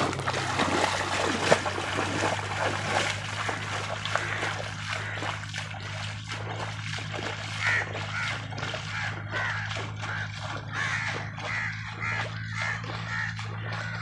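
Feet wading through shallow floodwater in a steady rhythm of splashing steps, with a bird cawing again and again and a steady low hum underneath.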